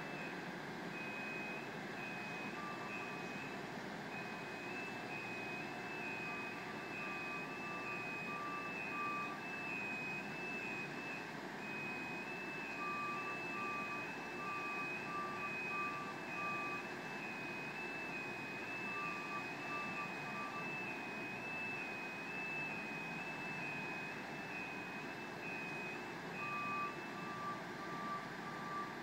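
Backup/motion alarms on construction boom lifts beeping: a high beep repeating about once a second that stops near the end, and a lower, quicker beep that comes and goes in short stretches, over a steady background hum.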